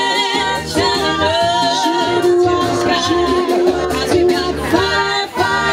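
Three women singing together into microphones, holding long wavering notes over accompanying music with a pulsing low bass.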